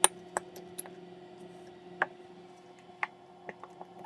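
Plastic bottle of Elmer's school glue being squeezed into a bowl, giving a handful of scattered, irregular clicks and pops as the glue and air push out of the nozzle. A faint steady hum sits underneath.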